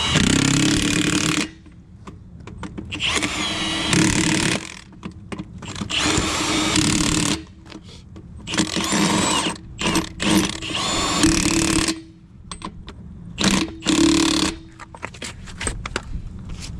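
Milwaukee 1/2-inch impact wrench running in about eight short bursts of a second or two each, hammering a semi tractor's wheel lug nuts tight.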